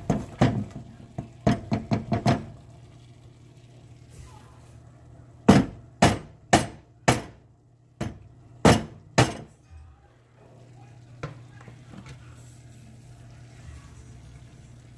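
A plastic cutting board knocked against the rim of a steel pot to tip diced onion and bell pepper off into the sauce: a quick run of sharp taps, then about seven louder knocks spaced roughly half a second apart.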